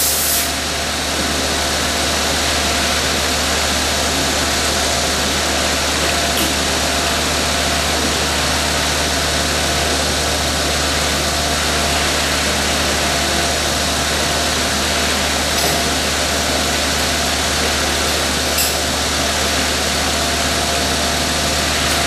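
VMC220L CNC vertical machining center milling a bore in a cast metal part with an end mill under flood coolant: a steady running hum of spindle and cut with a few faint ticks.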